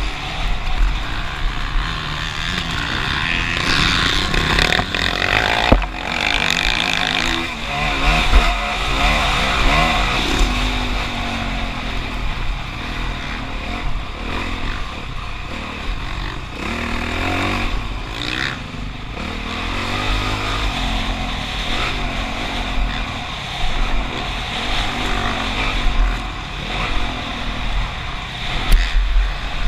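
Motocross bike engine revving hard, its pitch rising and falling again and again as the bike is ridden round the track, over a constant low rumble.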